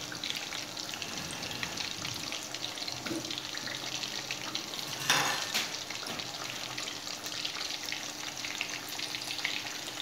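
Green-masala-coated fish pieces shallow-frying in hot oil in a karahi over a low flame: a steady crackling sizzle, with a brief louder spatter about five seconds in.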